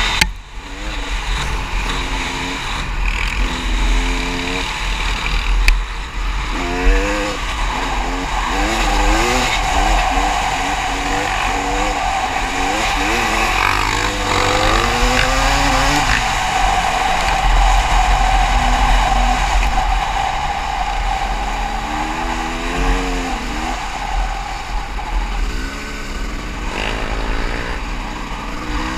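Dirt bike engine on the move, its revs climbing and dropping again and again as it accelerates and changes gear, with wind rushing over the microphone.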